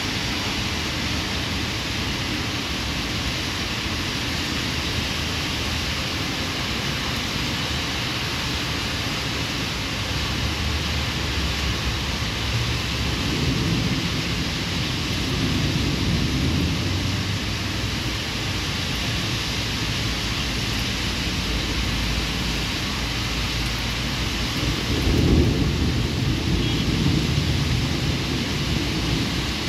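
Heavy rain falling steadily, with low rumbles of thunder swelling about halfway through and again, louder, near the end.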